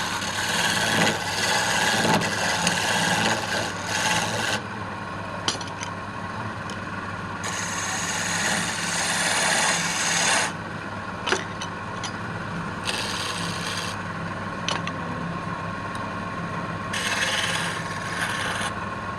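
Wood lathe running with a steady motor hum, while a tool or abrasive rubs against the spinning wood in several rasping stretches of a few seconds each.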